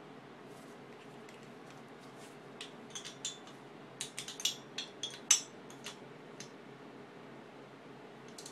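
Irregular light metallic clicks and clinks of tools and hardware being handled at the cylinder head of a Yamaha Towny moped engine during reassembly, bunched in the middle, with the sharpest about five seconds in.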